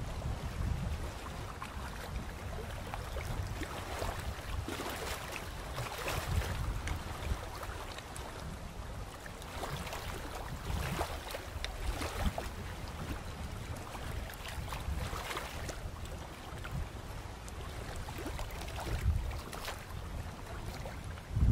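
Wind buffeting the microphone in a steady low rumble, with faint rustling now and then.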